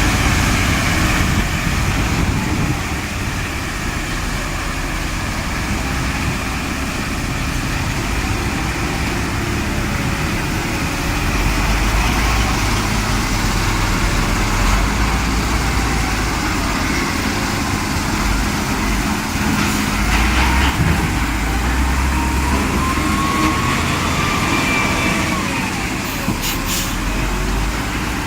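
Trommel screen and sand-washing machinery running: a steady low rumble with a faint wavering whine above it, and a few short clicks near the end.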